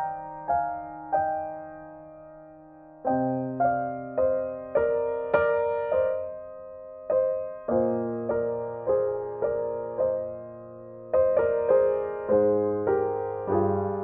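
Gentle background piano music: single notes struck about twice a second, each fading away, over a low note that changes every few seconds.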